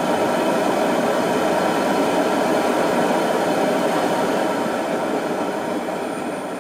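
Single-burner propane outdoor cooker running with its flame lit: a steady rushing noise of burning gas, easing slightly near the end.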